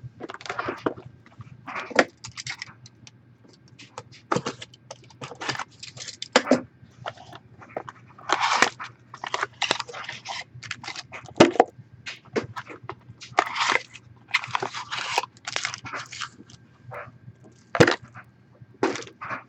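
Crinkling, rustling and tearing of plastic wrappers and card packaging being handled, in irregular short bursts with a few sharp clicks.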